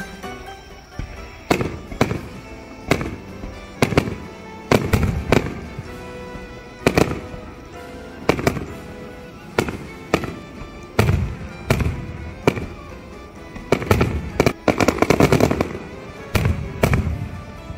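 Fireworks bursting: single loud bangs about a second apart, then a rapid volley of bangs near the end, with background music underneath.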